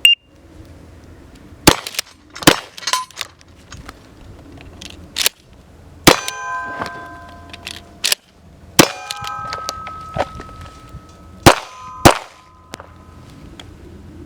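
Roughly nine gunshots fired at uneven intervals, some in quick pairs. Several are followed by a ringing metallic tone that lasts a second or more.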